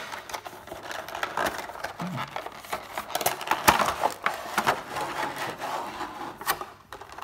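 A cardboard Funko Pop box being opened and its clear plastic clamshell insert slid out and handled: rustling and scraping of card and plastic, with irregular sharp clicks and taps.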